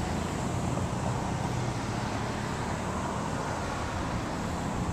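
Steady street traffic noise: cars passing on a city street, the sound swelling slightly for a moment in the middle.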